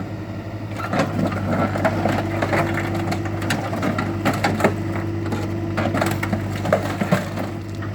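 Sheet-metal car body of a 1985 Pontiac Firebird crunching, creaking and cracking as an excavator crushes it, with many irregular sharp cracks. The excavator's engine runs steadily underneath.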